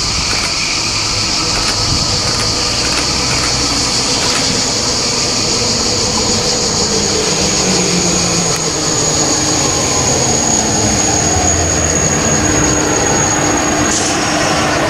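SNCF TGV 2N2 (Euroduplex) double-deck high-speed train pulling into the platform and slowing to a stop, with a rumble throughout and a motor tone that falls in pitch as it slows. A high steady whine runs over it and cuts off sharply about a second before the end, as the train comes to rest.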